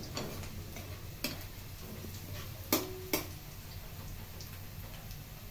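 Garlic and onion sautéing in oil in a pan, with a few sharp taps of a utensil against the pan, the loudest two close together about three seconds in.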